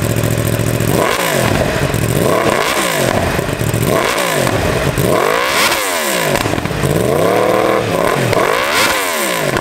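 A superbike's inline-four engine idles, then is revved in about six quick blips, each rising and falling back toward idle. The bike is being blipped at low revs as a backfire test.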